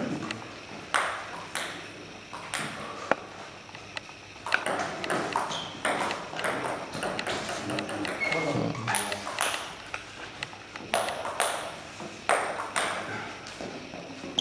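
Table tennis ball clicking sharply and irregularly off bats, table and floor, with people's voices now and then between the clicks.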